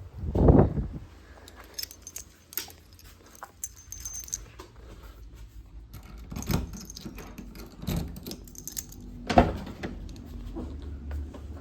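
Light metallic jingling and clicking, like keys or small metal parts being handled, with dull thumps about half a second in and near the end.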